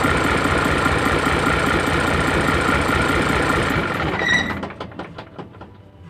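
Isuzu 6HK1 diesel truck engine idling steadily and running smoothly, its misfire and fuel starvation cured by a cleaned fuel strainer, a new fuel filter and bleeding the air out. About four seconds in there is a brief high beep, and the engine shuts off, its last few strokes fading away.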